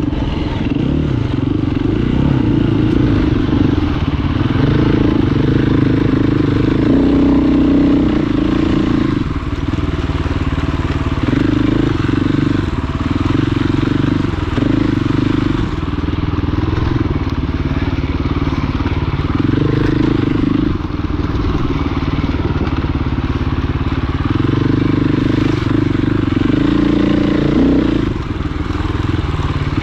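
Off-road dirt bike engine running under load on a rough trail, its pitch stepping up and down every second or two as the throttle is opened and closed.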